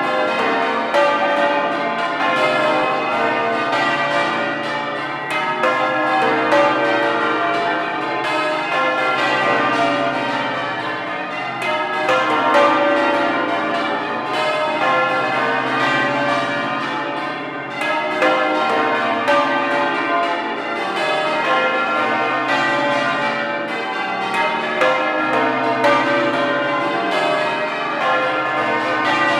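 Exeter Cathedral's ring of twelve church bells, with its heavy 72 cwt tenor, rung in changes: a rapid, unbroken stream of bell strokes with the deep hum of the heavier bells lingering underneath.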